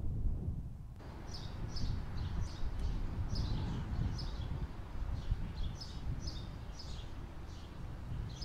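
Low wind rumble on the microphone, and from about a second in, small birds chirping over it in quick, short, falling chirps, several a second.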